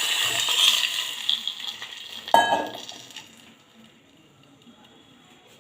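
Hot oil tempering with mustard seeds, lentils and curry leaves sizzling loudly as measured water is poured into the bronze pot, the sizzle dying down over about three seconds. A sharp metal clink sounds about two seconds in.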